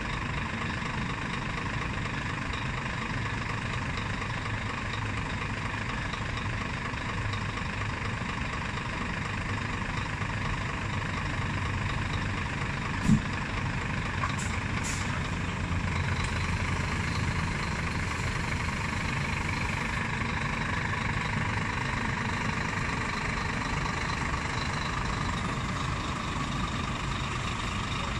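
Scania G440 truck's diesel engine idling steadily. A single sharp knock about thirteen seconds in, followed by a couple of faint clicks.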